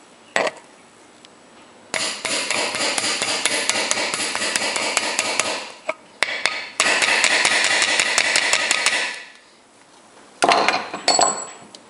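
A hammer tapping rapidly on a socket held against a sealed ball bearing, driving the bearing into the steel front wheel hub of a John Deere L130 lawn tractor until it seats. There are two long runs of quick taps with a short pause between them, then a few clanks near the end.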